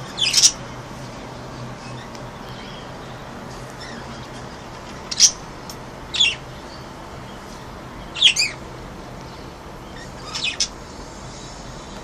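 Pet budgerigars calling: about five short, sharp, high chirps that sweep downward in pitch, scattered irregularly through the clip, over steady background noise with a faint low hum.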